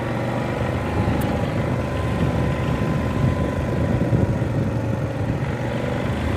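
ATV engine running steadily while the quad is ridden along, with a continuous rough hum and no change in pace.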